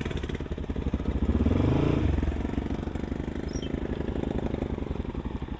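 Motorcycle engine running, revving up briefly about one and a half seconds in, then easing back to a steady run.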